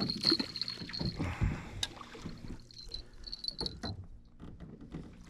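A hooked fish splashing at the surface beside a fishing boat as it is brought to the landing net, with scattered knocks and clicks of gear against the boat and a faint steady high whine through the first part.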